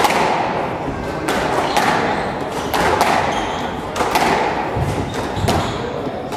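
Squash rally: the ball smacking off rackets and the front wall, a hit every half second to second, each one echoing briefly around the court.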